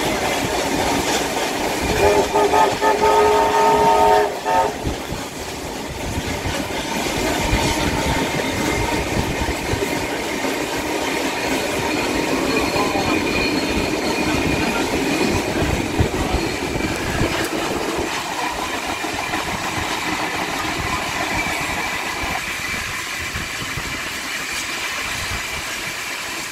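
A steam locomotive's whistle sounds once for about two and a half seconds, about two seconds in, over the steady rumble and clickety-clack of passenger carriages rolling along the track. The whole is heard from an open carriage window.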